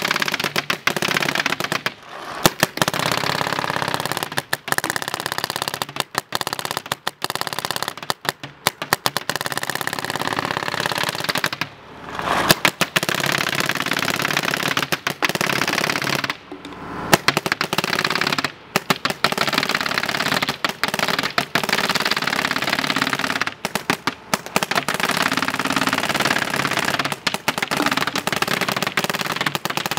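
SL8R electronic paintball marker firing in semi-automatic mode, long rapid strings of shots broken by a few short pauses.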